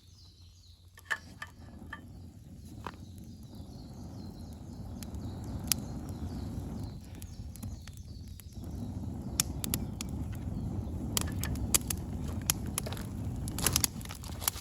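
Campfire burning: wood crackling with sharp pops over a low rushing sound that grows louder, breaking off briefly about halfway through.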